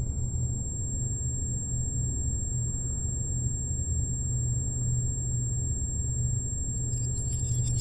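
Steady low rumbling drone with faint thin high tones above it, part of a designed soundtrack. A crackling hiss comes in near the end.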